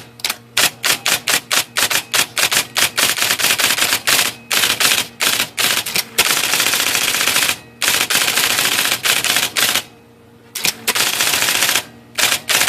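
IBM Selectric II electric typewriter typing a test run: sharp keystrokes a few a second at first, then running together in fast bursts with brief pauses, over the steady hum of its motor. The machine has an intermittent misselection fault, printing partial or wrong characters, that a freshly lubricated type ball has not cured.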